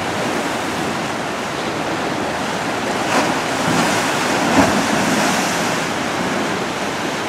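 Ocean surf washing against a rocky shore: a steady rush of breaking waves that swells a little about halfway through, with some wind.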